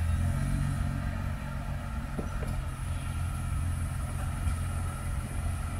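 Jeep Gladiator's engine running low and steady as the truck crawls slowly down a rock ledge.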